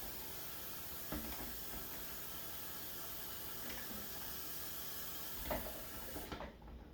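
Dishes being hand-washed in soapy water: a few soft clinks of dishes over a steady hiss, which cuts off suddenly near the end.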